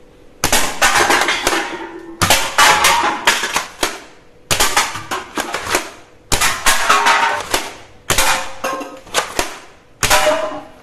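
A toy foam-dart blaster fired six times, roughly every two seconds. Each shot is a burst of sharp clicks and clatter as darts strike and knock over stacked aluminium drink cans.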